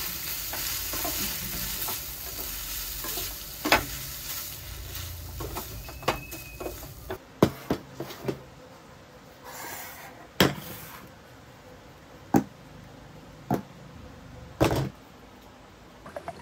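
Kimchi fried rice sizzling in a frying pan while a spatula stirs and scrapes it. About seven seconds in the sizzle stops, and a ceramic bowl, a spoon and a mug are set down on a desk with a series of sharp clinks and knocks.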